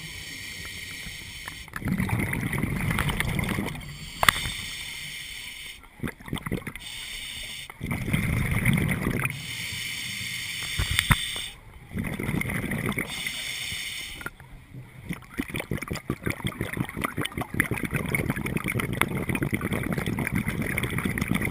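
Scuba diver breathing through a regulator underwater: a hissing inhale and a bubbling exhale take turns about every two seconds. In the second half the bubbling turns into a long run of crackling clicks.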